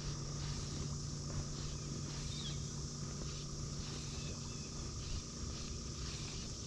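Steady outdoor insect chorus, a continuous high buzzing with a faint regular pulse, over a low steady hum. One short high chirp about two seconds in.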